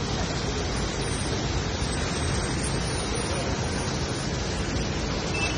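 Steady rushing noise of riding in a vehicle on a wet road in the rain, with no distinct events: tyre, wind and rain noise.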